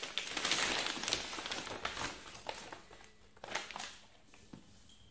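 Packaging crinkling as it is handled, loudest and densest for the first two seconds, then a few shorter rustles.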